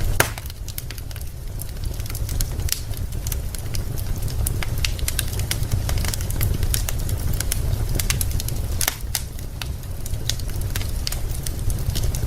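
Wood fire crackling: irregular sharp pops and snaps from burning logs over a steady low rumble, with a louder snap at the very start and another late on.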